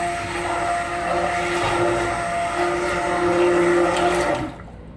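Handheld stick blender running submerged in soap batter, a steady motor whine that cuts off suddenly about four and a half seconds in. The batter is being blended up to light trace.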